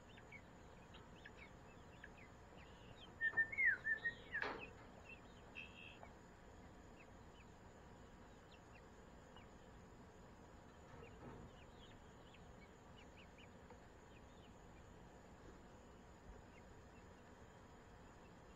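Poultry in a coop giving a few short chirping calls, bunched about three to five seconds in, then only faint scattered peeps over a low steady hiss.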